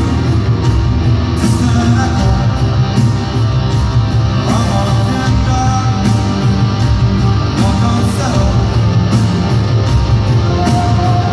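Live rock band playing at arena volume, heavy bass and drums with sustained guitar tones, recorded from the audience on a phone.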